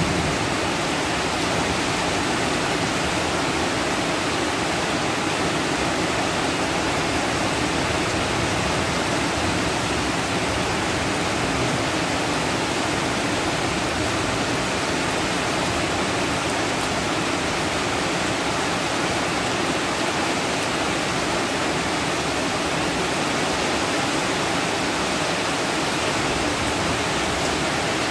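Heavy rain pouring steadily, an even, unbroken hiss of water on trees and pavement.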